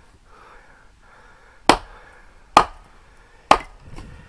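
Dead branch struck down against slate stones to break it for firewood: three sharp cracks about a second apart, then a fainter knock.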